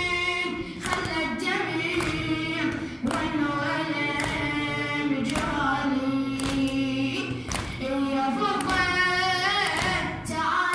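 A shur-style Shi'a mourning elegy (latmiya) chanted in Arabic through a microphone, the melody drawn out with wavering pitch. Sharp hand slaps at intervals, the chest-beating that goes with shur chanting.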